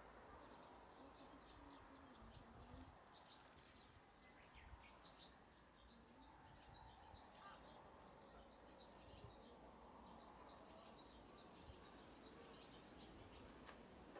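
Faint outdoor background hiss with small birds chirping repeatedly in short, high calls.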